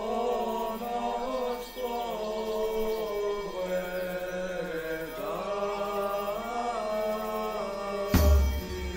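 Music: voices chanting a slow melody over a steady held low drone. About eight seconds in, a loud deep percussive hit comes in.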